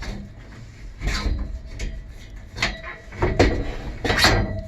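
Clunks and scrapes of a hinged ramp being handled and set down as a bench inside a van, with about four sharp knocks.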